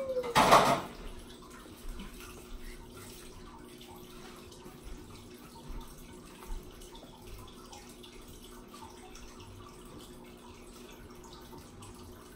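A toddler eating an ice pop: faint wet smacks and sucking clicks over a quiet room with a low steady hum. A brief loud burst comes right at the start.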